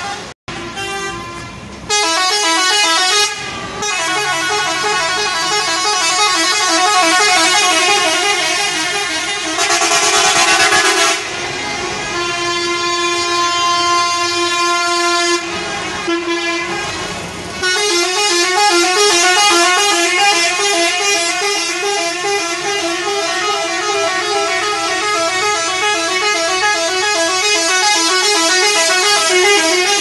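Bus air horn sounding a fast run of alternating notes, with a few steadier held notes around the middle. It cuts out briefly about half a second in.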